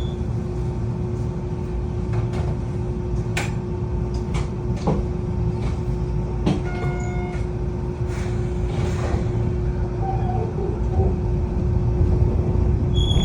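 Train car interior: a steady low rumble under a constant hum, with scattered clicks and a short electronic beep about seven seconds in, growing louder near the end.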